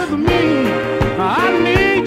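A 1970s soul record playing: a full band with a steady drum beat and melodic lines that slide up and down, one rising sharply just past the middle.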